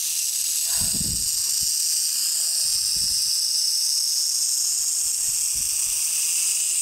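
Speckled rattlesnake (Crotalus mitchellii pyrrhus) rattling its tail in a steady, unbroken high buzz: a defensive warning from a snake that feels threatened as it retreats into the rocks.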